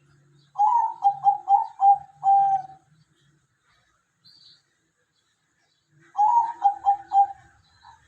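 A dove cooing: two phrases of several short, quick notes, each phrase ending on a longer held note, the second phrase about three and a half seconds after the first ends.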